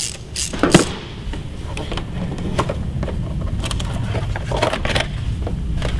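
Sharp clicks and taps of a Torx screwdriver and plastic engine-cover clips being handled, several in the first second and a few scattered after, over a steady low rumble.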